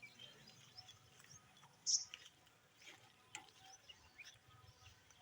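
Indian ringneck parakeet chirping: scattered faint high chirps, with one short, louder high-pitched chirp about two seconds in.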